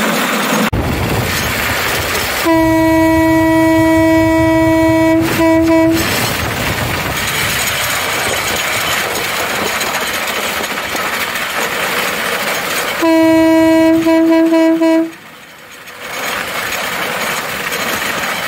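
A rail cart's single-tone horn sounds a long blast followed by a few quick toots, then, some seconds later, a shorter blast with more quick toots. Underneath runs the steady noise of the cart travelling along the rails.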